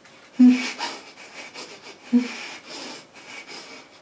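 A man's heavy, strained breathing, with two short grunts, one about half a second in and one about two seconds in.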